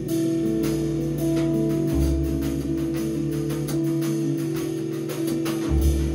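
Guitar, double bass and drum kit trio playing: held guitar chords over long low double bass notes, with the drums keeping time in light, regular cymbal strokes.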